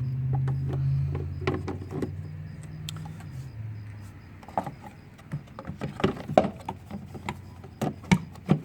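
A low rumble that fades away over the first few seconds, then a run of short plastic clicks and knocks as the air filter and the plastic airbox cover are handled and fitted back into place.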